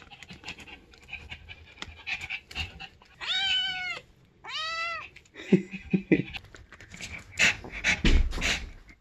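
A kitten meows twice, about three and four and a half seconds in, each call high-pitched and under a second long. Scattered breathy noises and small clicks fall around the calls.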